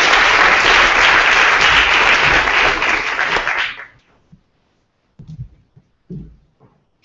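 Audience applauding, dying away about four seconds in, followed by a couple of faint knocks.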